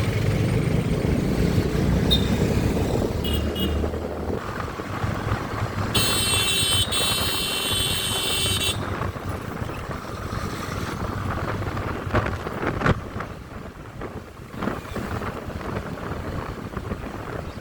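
Motorcycle and street traffic noise, a steady engine and road rumble, with a high horn sounding for nearly three seconds about six seconds in.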